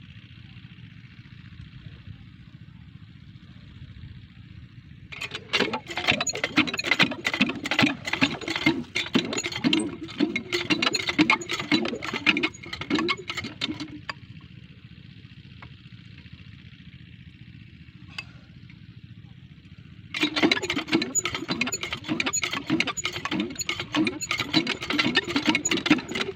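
Small Chinese diesel engine driving a well water pump, running with a fast rhythmic chugging. It comes in suddenly about five seconds in, drops out at about fourteen seconds, and comes in again at about twenty seconds.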